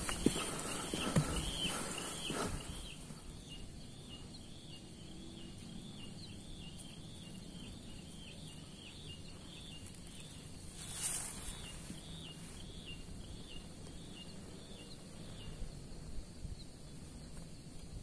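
A high chirping call repeated about twice a second from a small animal, with footsteps on the trail in the first couple of seconds and a brief rush of noise about eleven seconds in.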